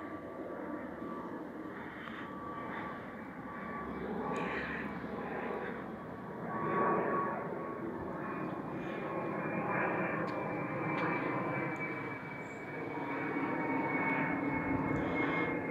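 Jet noise of a British Airways Airbus A320 passing overhead: a steady rush from its twin turbofan engines, with a faint whine that slowly falls in pitch.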